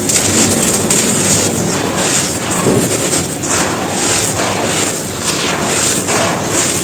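Soft, dusty bricks being crumbled and crushed, a dense, continuous crunching and crackling.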